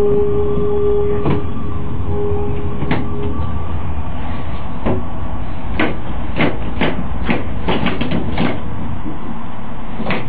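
Nuremberg U-Bahn DT1 subway car with a three-phase drive running, heard from the driver's cab: a steady electric drive whine fades out about three seconds in. Then comes a run of about a dozen irregular sharp wheel clacks from the track over a steady rolling rumble.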